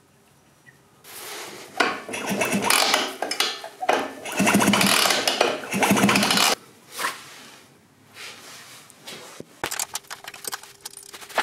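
Hands-on work on a Vespa 50cc scooter engine: about five seconds of loud metallic clattering and scraping, then quieter handling, then a run of light metal clicks as a spanner is worked on the engine casing near the end.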